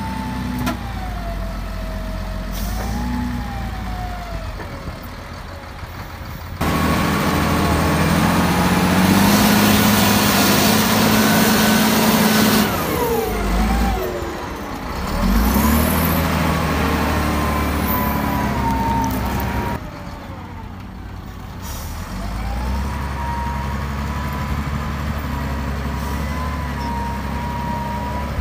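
Diesel engine of a Lonking wheel loader running and revving as it digs and lifts sand, with a whine that rises and falls in pitch with the revs. The sound jumps louder about a quarter of the way in, falls away in a downward glide near the middle, and drops back to a lower run about two-thirds through.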